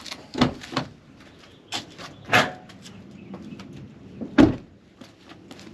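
Handling noises at a car while the parking brake is set: a series of knocks and clicks, with a louder one about two and a half seconds in and a heavy thump about four and a half seconds in.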